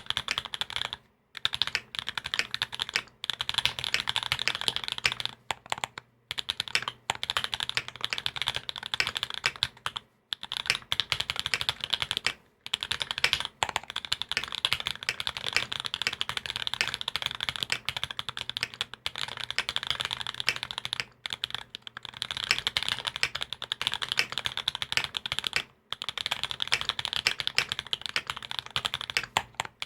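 Continuous fast typing on a custom Salamander mechanical keyboard with lubed SP-Star Meteor White linear switches on a carbon fibre plate and GMK doubleshot keycaps: a dense patter of keystrokes with brief pauses every few seconds.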